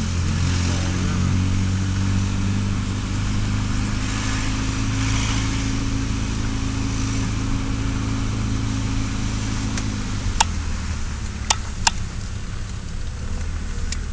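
Saab 9000 engine running steadily under way, heard from inside the cabin. About ten seconds in the engine note drops and changes, and three sharp clicks follow.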